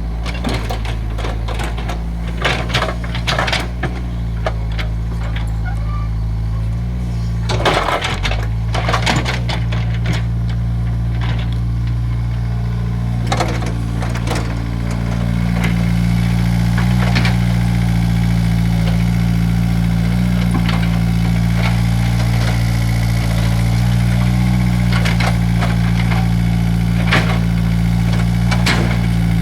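Excavator's diesel engine running steadily, with repeated knocks and clanks and a longer scraping rush about a quarter of the way in as it digs; the engine grows louder about halfway through.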